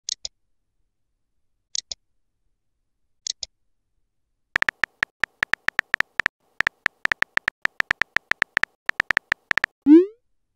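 Texting-app sound effects: three short double clicks, then a fast run of short electronic typing ticks, about seven a second for some five seconds as a message is typed letter by letter. It ends near the close in one short, loud swoop rising in pitch as the message is sent.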